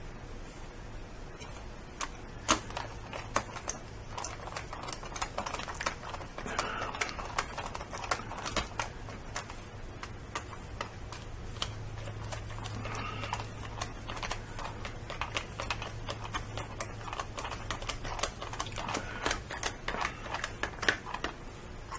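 Hand screwdriver turning screws into a plastic charger case: irregular clicks and ticks as the screws bite and the tip shifts in the heads, with a few short squeaks. A low steady hum runs underneath.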